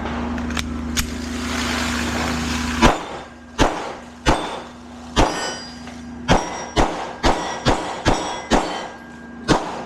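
A series of about a dozen sharp metallic clanks, each with a short ringing tail, coming faster, about two a second, from about six seconds in. A steady low hum runs under the first three seconds and stops with a louder clank.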